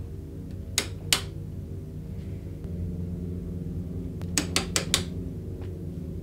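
Wall light switch flicked repeatedly: two sharp clicks about a second in, then four quick clicks near the end, over a low droning film score.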